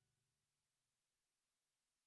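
Near silence: the last faint tail of the closing music dies away right at the start.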